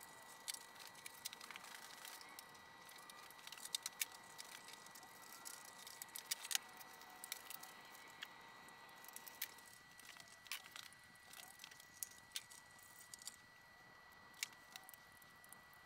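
Faint, scattered clicks and small rattles of wires, terminals and small parts being handled and unfastened while a CNC control panel's wiring is taken apart, over a faint steady high-pitched tone.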